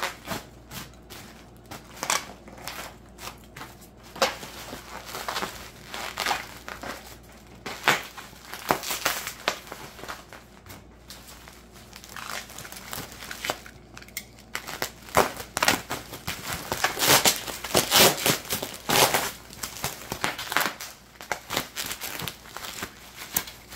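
Bubble wrap crinkling and foam packing peanuts rustling as wrapped parts are lifted out of a cardboard box. The crinkling comes in irregular bursts and is busiest about fifteen to twenty seconds in.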